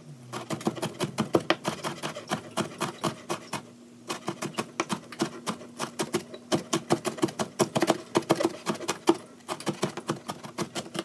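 Chef's knife rapidly mincing red bell pepper on a plastic cutting board: quick, sharp chopping taps several a second, with a couple of brief pauses.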